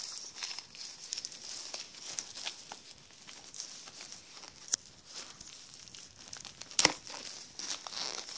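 Plastic wrapping on a DVD box set crinkling and crackling as it is handled and pulled off, with a couple of sharper crackles, the loudest near the end.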